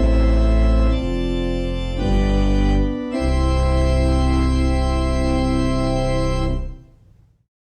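Organ playing sustained chords in a closing cadence. The chord changes about once a second, then a final long chord is held for a few seconds and released, fading out about seven seconds in.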